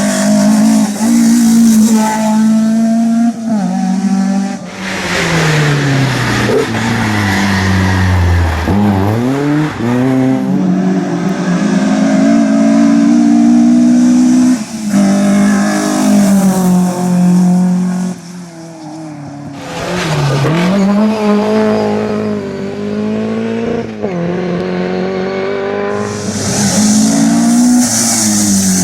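Fiat 131 Abarth rally cars' four-cylinder twin-cam engines at full throttle, revving up and dropping through gear changes and braking. This is heard as a string of separate loud passes.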